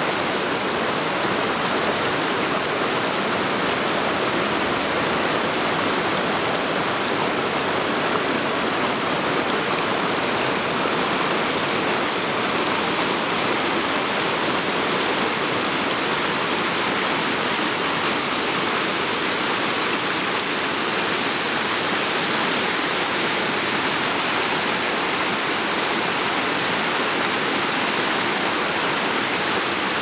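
A small, clear mountain river rushing and splashing over boulders in a steady, unbroken stream of water noise.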